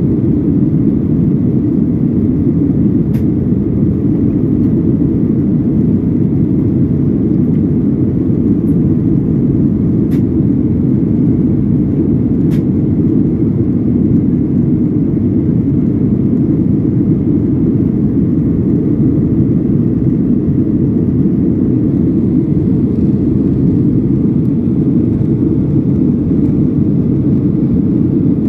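Jet airliner cabin noise in flight: a steady, low rumble of engines and airflow heard at a window seat.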